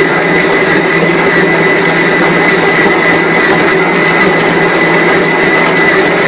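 Mito MX100 electric stand mixer running steadily, its motor giving a constant whine with a high tone. It is mixing bread dough in the early stage, with the flour still dry and crumbly.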